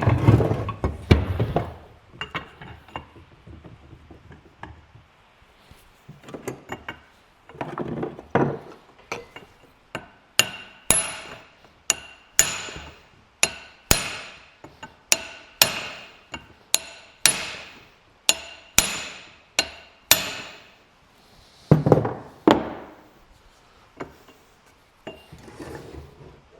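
Hammer blows on a steel drift punch, knocking a part out of an old sawmill lumber gauge: a steady run of sharp metal strikes, about one and a half a second, each with a short ring, and lighter taps and handling clatter in between.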